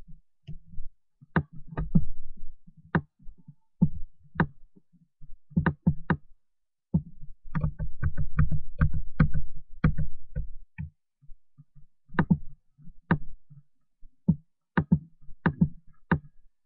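Irregular dull taps and knocks from a stylus and hands working a tablet computer, with a denser run of rapid taps in the middle.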